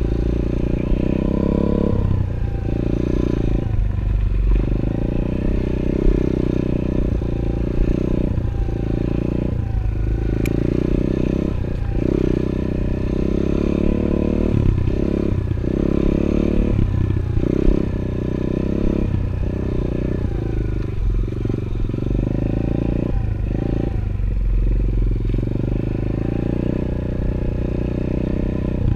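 A 110cc four-stroke pit bike engine being ridden, revving up and easing off every second or two as the throttle is opened and closed.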